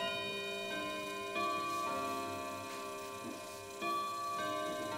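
Clocks ticking over sustained ringing bell-like tones, with new tones striking about a second and a half in and again near four seconds.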